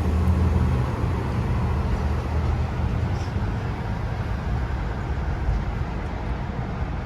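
Steady low rumble and road noise inside a moving car's cabin.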